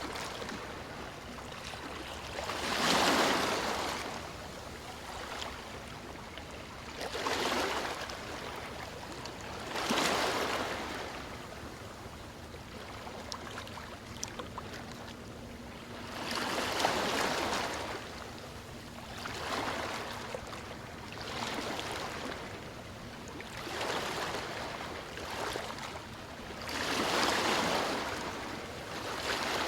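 River water flowing with a steady rush, swelling into louder surges every few seconds.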